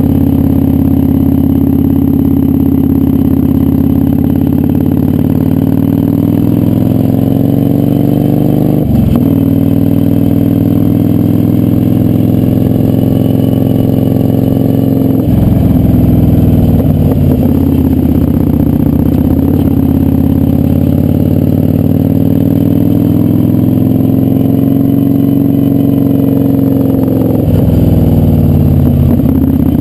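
Kawasaki Vulcan 900's V-twin engine running under way, its note climbing as it pulls and then dropping sharply three times, about a third of the way in, halfway and near the end, as with gear changes or rolling off the throttle.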